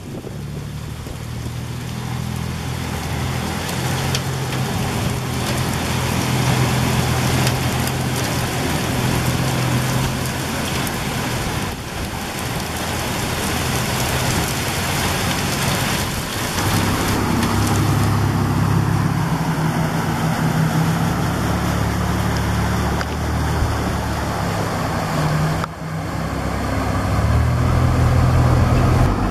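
Torrential rain pouring down, with car engines running and tyres splashing through deep flood water on the road.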